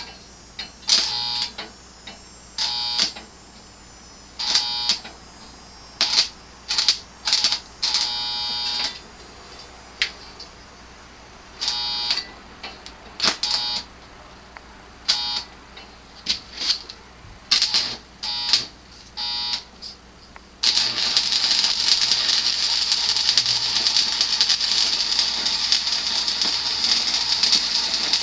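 Stick (arc) welder striking its arc over and over: about a dozen short buzzing, crackling bursts as the electrode catches and goes out, then from about two-thirds of the way in a steady crackling arc held for several seconds. The welder is fighting to get the weld to take.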